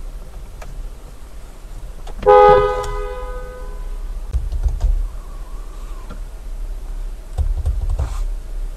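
A car horn gives one short honk about two seconds in. A low steady hum sits underneath, and a few light clicks and knocks follow from the controls being handled.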